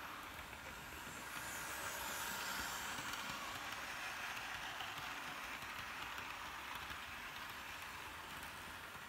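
Hornby OO-gauge Flying Scotsman model train running on its track: a steady whirring of the small electric motor and the wheels on the rails, swelling a little about two seconds in as the carriages pass close, then easing off slowly.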